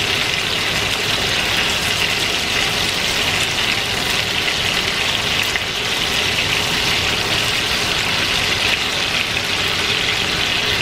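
Bourbon-marinated boneless chicken thighs sizzling steadily in a frying pan, browning in their juices over lowered heat.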